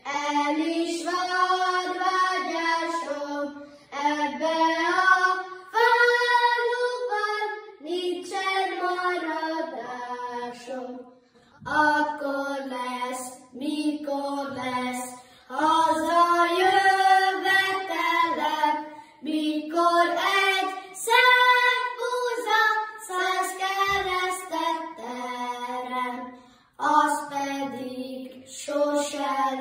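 Children singing a Hungarian folk song of the Gömör charcoal burners together, unaccompanied, in phrases broken by short pauses for breath.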